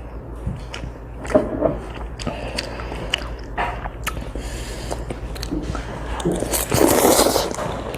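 A child eating chewy spicy noodles close to the microphone: wet mouth clicks and chewing, with a louder noisy stretch, likely a slurp, about seven seconds in.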